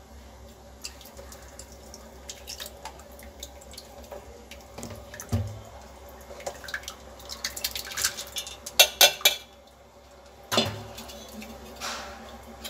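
Soaked tamarind pulp being poured and dripping through a metal mesh strainer into a pan, with clinks and knocks of the strainer and steel bowl against the pan. A few louder knocks come past the middle.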